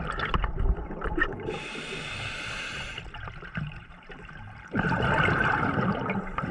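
Scuba regulator breathing underwater: a hissing inhalation about a second and a half in, then a louder rush of exhaled bubbles from near the end.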